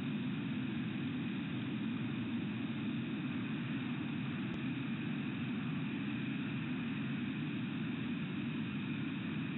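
Steady, even background noise with no distinct sounds: a constant low rush that does not change.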